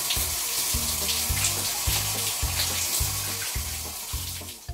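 Shower spraying water in a steady hiss, over background music with a steady bass beat just under two beats a second; both fade out near the end.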